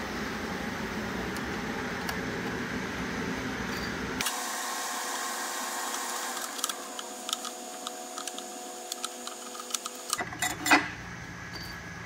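Scattered light clicks and taps as hands work the wheel cover off the grinding head of a Kwik-Way valve refacer, with a sharper knock near the end. A steady shop hum fills the first few seconds and cuts off abruptly.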